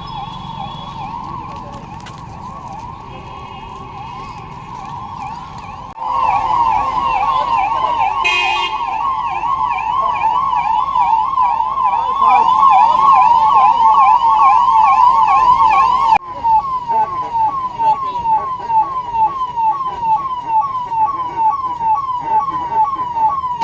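Emergency vehicle siren sounding in quick rising-and-falling sweeps, suddenly much louder about six seconds in; about ten seconds later it switches to a slower pulsing pattern of separate sweeps.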